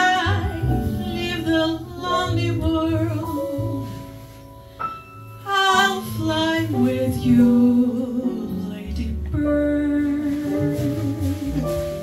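Live jazz: a woman sings a slow vocal line, with vibrato on held notes, over piano, upright bass and drums.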